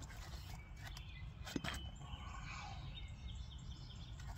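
Outdoor riverside ambience: a steady low rumble, faint bird chirps, and one sharp click about one and a half seconds in.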